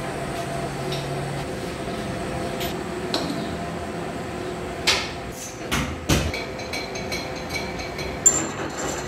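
Metal knocks and clanks as a cutting tool is set and clamped in a lathe's tool post, over a steady workshop hum. Near the end the lathe starts turning the clutch pressure plate, adding a steady high whine.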